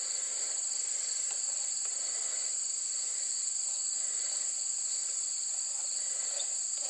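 Steady, high-pitched chorus of insects such as crickets, droning without a break.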